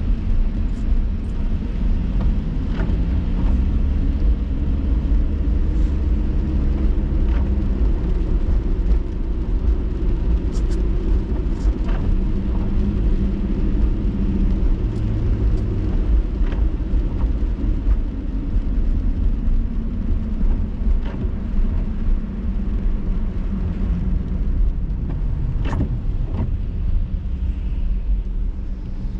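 Car driving on a wet road, heard from inside the cabin: a steady low engine and tyre rumble whose engine tone drifts up and down, with scattered light clicks. It gets a little quieter near the end as the car slows in traffic.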